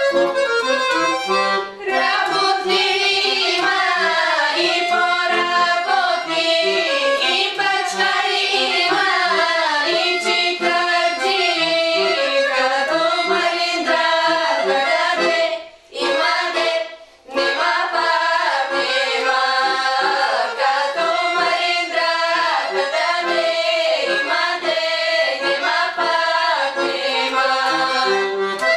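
Background instrumental music led by an accordion in a traditional folk style, with brief breaks about two seconds in and twice around the middle.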